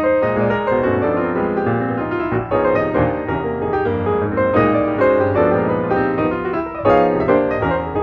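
Background music led by piano, a steady flow of notes.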